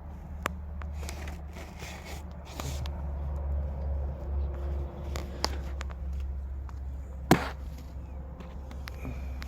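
Scattered clicks and knocks over a steady low rumble, with one sharp, loud knock about seven seconds in.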